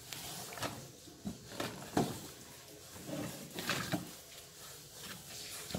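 Faint rustling of woven plastic sacks and light knocks of cardboard firework tubes being handled, in scattered short sounds.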